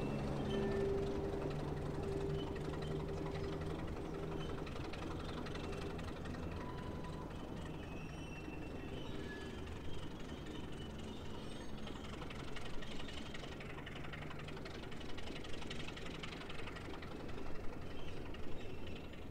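Diesel-electric locomotive NSU 52 running along the track and moving away, its diesel engine hum fading over the first several seconds into a softer rumble. Sharp clicks and knocks from the wheels and running gear come through in the second half.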